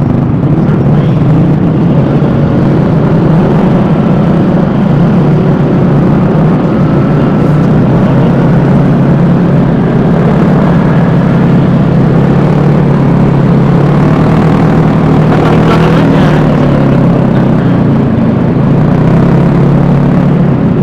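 Riding noise of a Vespa S 125 scooter on the move: the engine running steadily under heavy wind and road noise.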